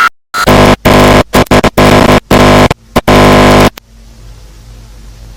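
Loud, distorted synthesized electronic tones in stuttering, chopped-up bursts that cut off suddenly about three and a half seconds in, leaving a low steady hum.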